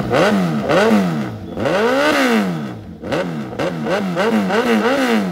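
2022 Suzuki Hayabusa's inline-four revved repeatedly at standstill through a loud full-system aftermarket exhaust. It gives three quick blips, then one longer rev up and back down about two seconds in, then a fast run of about five short blips.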